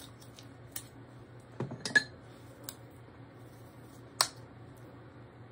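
Sharp plastic clicks from a NARS blush compact and makeup brush being handled: a cluster of clicks about two seconds in and a single loud click about four seconds in.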